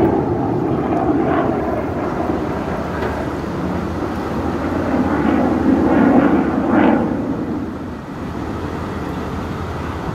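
Fighter jet's engine roar as it flies its display overhead, swelling about a second in and again around six to seven seconds, then easing off.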